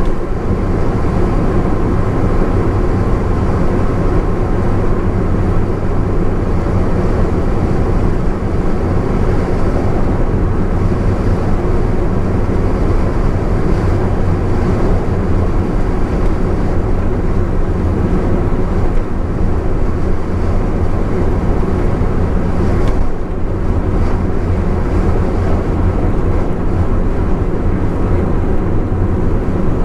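Steady road noise of a Honda S660 kei roadster driving at expressway speed, heard from inside the car: a constant low rumble of engine and tyres with wind noise, changing little throughout.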